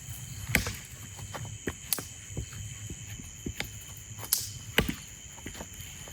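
Firewood being worked by hand at camp: irregular sharp knocks and cracks of wood, the loudest about half a second in, near two seconds and twice around four and a half to five seconds, over a steady high hiss.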